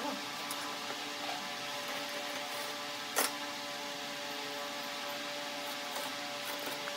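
A steady hum made of several held tones, with one sharp click or knock about three seconds in.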